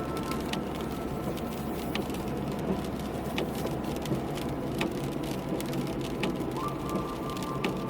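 Rain falling, with irregular single drops ticking sharply close to the microphone, over a steady low hum.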